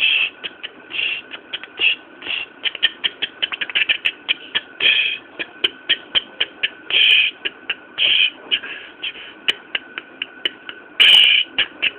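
Ticking sound effect: sharp ticks at an uneven pace, crowding into fast runs about three to four seconds in, broken by short hiss-like bursts, over a faint steady tone.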